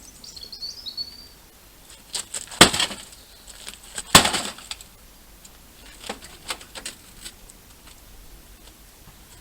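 A few sharp knocks and clatters of handling on the dented metal top of a battered microwave, two loud ones about two and a half and four seconds in and lighter ones a couple of seconds later. A bird gives a short falling chirp at the start.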